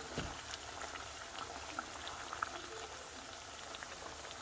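Purple sweet potato frying in hot oil in a pan: the oil bubbles steadily with many small crackles and pops.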